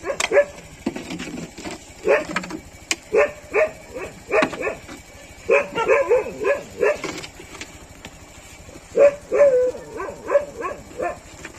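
A dog barking over and over in short, sharp barks, pausing for a second or two past the middle before a last run of barks.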